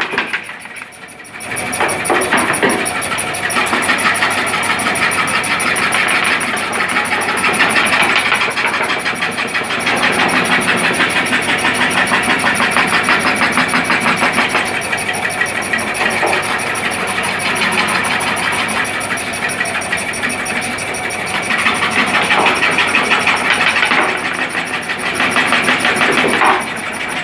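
Scroll saw with a wooden upper arm running, its blade chattering rapidly up and down as it cuts a curve in a wooden board. The sound dips briefly about a second in, then runs steadily.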